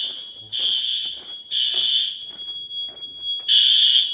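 System Sensor SpectrAlert Advance fire alarm horns sounding in the temporal-3 evacuation pattern: three half-second blasts, a pause of about a second and a half, then the next set of blasts beginning near the end. A faint steady high tone carries on between the blasts.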